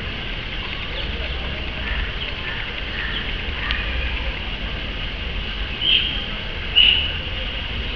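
Two short high-pitched animal calls, one about six seconds in and one about a second later, over a steady low outdoor rumble.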